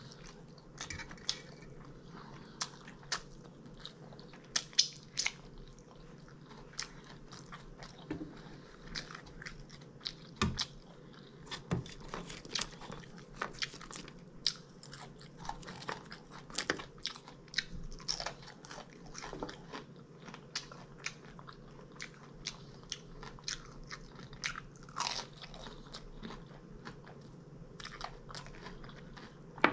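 Close-miked chewing with many crisp, irregular crunching bites.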